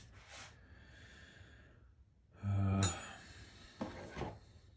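A person breathing out in a sigh, then a short, low, steady-pitched hum about halfway through.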